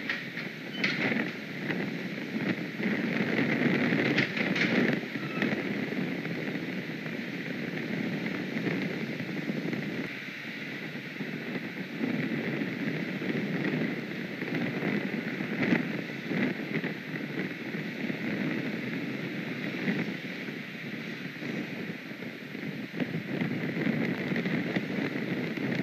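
Wind buffeting an outdoor nest camera's microphone: a steady rushing that swells and eases, with a few brief rustles or knocks.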